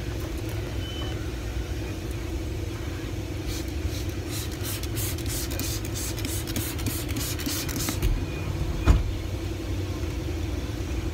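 Chevrolet pickup's engine idling, heard as a steady low rumble inside the cab. From about three and a half seconds in, a cleaning bottle gives a quick run of short hissing sprays, and a single thump comes near the end.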